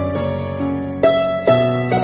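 Background music: a melody of sharply struck notes that ring on over a held low bass note, with new notes coming in about a second in and again half a second later.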